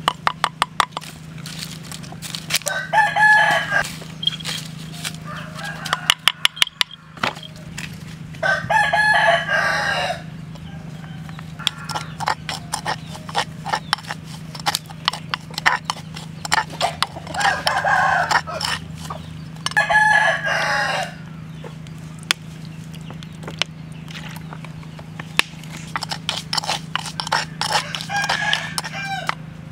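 A metal spoon clicking and scraping against a wooden mortar as a chili sauce is stirred and worked. A rooster crows about five times, each crow about a second long; the crows are the loudest sounds.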